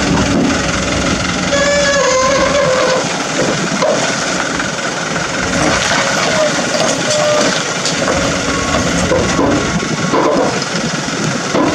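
Kobelco SK200 excavator's diesel engine running steadily under load as its hydraulic arm lifts a tipped-over dump truck.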